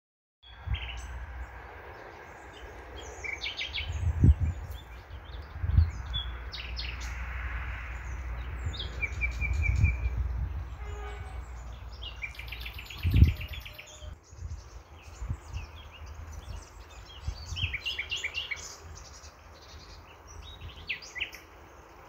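Small birds chirping and calling in quick repeated notes over a steady low outdoor rumble, with a few dull thumps.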